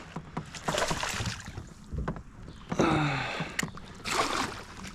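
Water splashing in short swells with scattered knocks and clicks of gear against a kayak, as a hooked fish is brought alongside to be netted.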